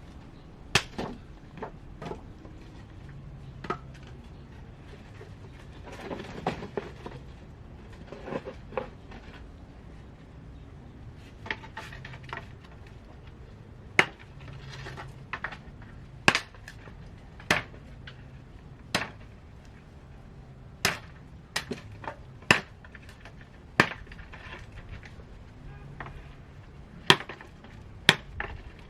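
Repeated chopping strokes: sharp single knocks every second or two, irregularly spaced, with a little clatter between some of them.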